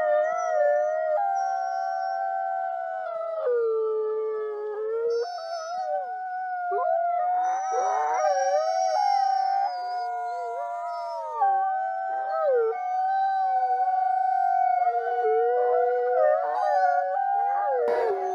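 A pack of wolves howling in chorus: several long, overlapping howls at different pitches, some held steady and others bending up and down. A short click sounds near the end.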